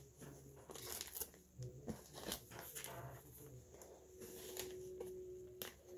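Comic book in a clear plastic bag with a cardboard backing board being handled: faint rustling and crinkling of the plastic sleeve, with scattered light crackles.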